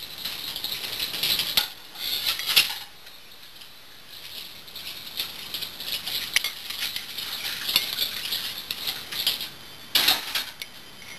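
Spoon scraping and clicking against a thin plastic cup, with the cup crinkling as it is handled, in irregular bursts of small clicks and rustles.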